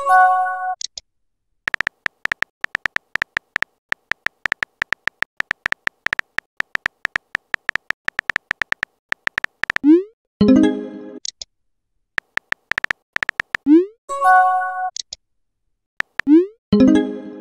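Rapid clicking of a simulated phone keyboard as text is typed out. It is broken about four times by short electronic message sounds, each a quick rising pop followed by a brief chime, as chat messages are sent and received.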